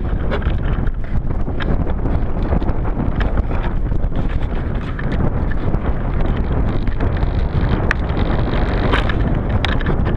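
Strong wind buffeting a GoPro camera's microphone: a loud, steady low rumble with scattered crackles and small knocks, and no motor tone.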